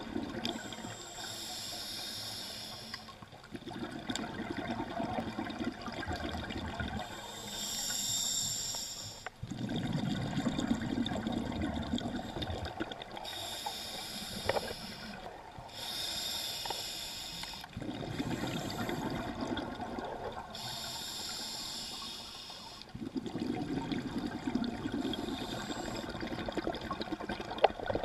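Scuba diver breathing through a regulator underwater: a hiss of air through the demand valve on each inhalation alternating with a longer burst of bubbling on each exhalation, about four breaths in a slow, even rhythm.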